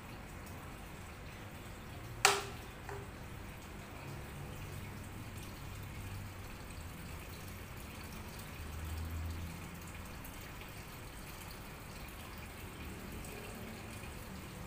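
Aquarium water trickling steadily, with a sharp click about two seconds in and a fainter click just after it.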